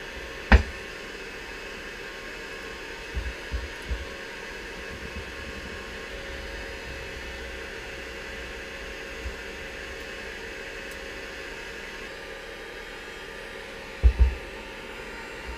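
Heat gun blowing steadily, heating the magnesium final drive housing so the bearings can be fitted. A sharp knock comes about half a second in, a few lighter knocks come around three to four seconds, and a loud double knock comes near the end.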